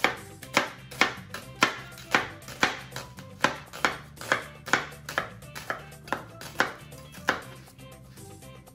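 Chef's knife slicing through a peeled onion and striking a plastic cutting board in a steady rhythm of about two cuts a second, pausing briefly near the end, over calypso background music.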